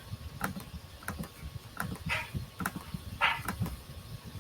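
Clicking on a computer's mouse and keyboard while undoing steps: a string of sharp clicks, about two a second, with two short hissing noises about two and three seconds in.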